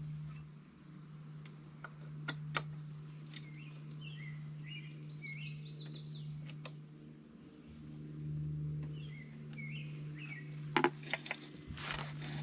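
Sharp metallic clicks from a wrench and bolts while the gearhead is unbolted from the multi tool's shaft: a few scattered clicks, then a quick cluster near the end. Small birds chirp throughout over a steady low hum.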